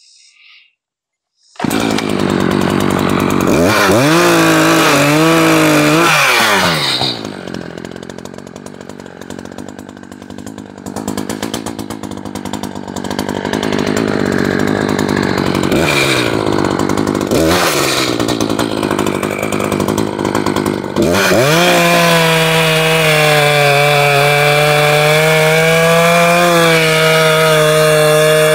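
Echo Timber Wolf two-stroke chainsaw cutting into a cherry log. It starts abruptly after a brief silence and revs up a few seconds in, then drops back to a lower, uneven note for a while. From about three-quarters of the way through it runs loud and steady at high revs through the cut.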